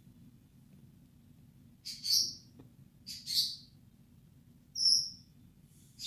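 Small birds calling: four short, high chirps about a second apart, the first two each in two quick parts, over a faint low rumble.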